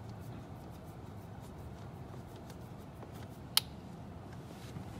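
Hand screwdriver working a screw into the dash bracket: faint scattered ticks and scrapes over a steady low hum, with one sharp click about three and a half seconds in.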